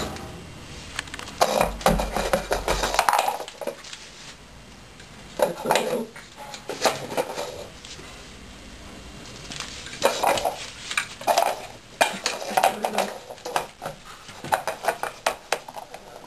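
Schnauzer puppy pushing a hard bowl around on a wooden floor: clattering and knocking in several bursts of a second or two, with quieter gaps between them.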